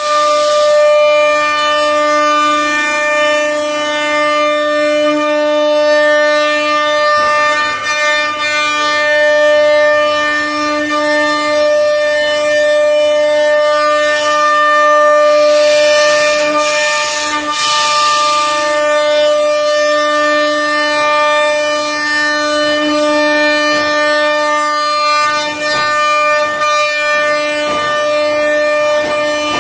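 CNC router's automatic-tool-change spindle running at high speed: a loud, steady whine with a string of overtones. A burst of hiss joins it from about 15 to 18 seconds in.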